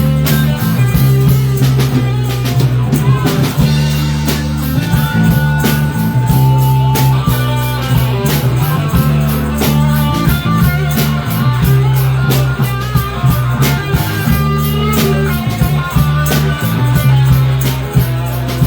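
Rock band playing an instrumental break with no singing: guitar lines with held notes over bass and a drum kit keeping a steady beat.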